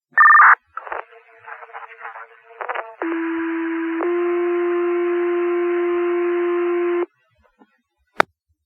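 Two-tone sequential fire pager alert tones over a dispatch radio. A short two-pitch beep and some radio noise come first. Then a low tone sounds for about a second, steps up slightly and holds about three seconds before cutting off sharply. It is the alert that sets off the Wingham fire station's pagers ahead of the dispatcher's voice page, and a single radio click comes near the end.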